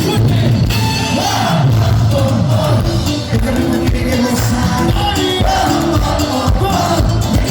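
Live cumbia band playing, loud, with a steady beat and a melody line.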